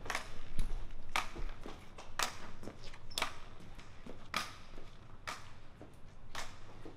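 Footsteps on a hard, polished hallway floor, a steady walking rhythm with every other step louder, growing slightly fainter.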